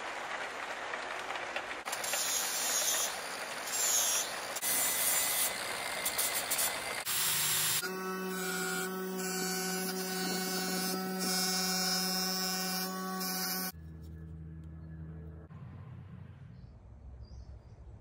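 Workshop power tools: several seconds of loud, dense hissing noise of a tool working the metal, then an electric lathe motor running with a steady hum and whine for about six seconds. The hum cuts off suddenly, leaving a much quieter low rumble.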